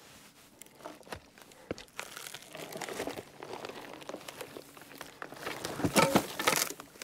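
A rotten log being levered and rolled off a pile with a cant hook, with loose bark and dry brush crackling and crunching. About six seconds in comes a burst of knocks and crunching as the log rolls over.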